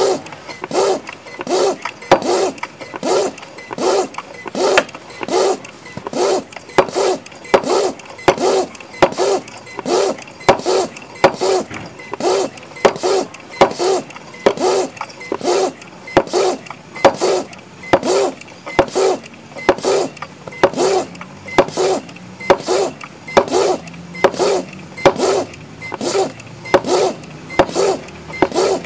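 High-pressure PCP hand pump being stroked at a steady pace, about one stroke a second, each stroke a short rush of air, as it charges the line up toward 2500 psi.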